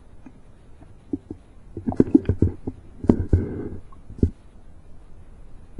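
Muffled knocks, bumps and gurgling water heard through an action camera's waterproof housing held underwater. A cluster of knocks with a brief bubbling rush comes about two to four seconds in.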